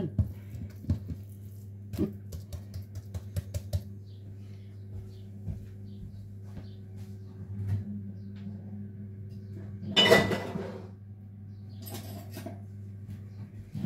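Kitchen items being handled: a quick run of light taps and clicks in the first few seconds, then one loud clatter about ten seconds in, over a steady low hum.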